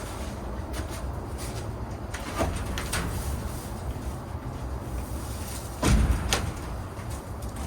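A few sharp knocks and clatters over a steady low rumble, the loudest a heavy thump about six seconds in, like a door or latch being worked.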